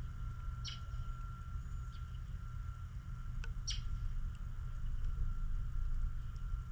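A few short, high bird chirps: two clear ones about a second in and near four seconds, with fainter ones between. They sound over a steady low rumble and a faint steady high hum.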